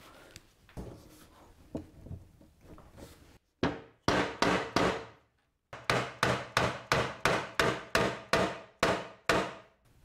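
Soft-faced mallet knocking a glued, dowelled timber frame together. After a few light handling knocks come four blows, a short pause, then a quick even run of about a dozen blows, roughly three a second.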